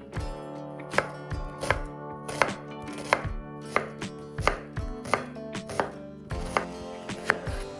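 Chef's knife slicing red onion on a wooden cutting board: a crisp cut through the onion and a knock of the blade on the board, in a steady rhythm of about three strokes every two seconds.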